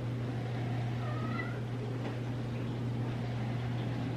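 Domestic cat giving one short meow about a second in, over a steady low hum.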